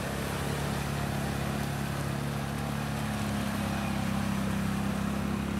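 Off-road vehicle engine running steadily under load as it tows a tub through a mud pit.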